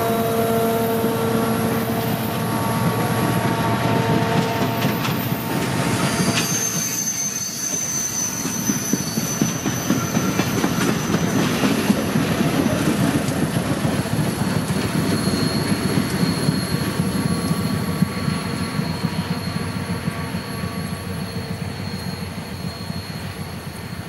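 Passenger train rolling past on the rails, its wheels squealing for the first five seconds or so. After that the rolling noise of the train goes on and slowly fades as it moves away.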